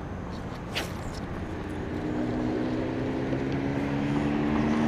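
An approaching engine: a steady droning hum that sets in about two seconds in and grows louder as it nears. A short sharp click sounds about a second in.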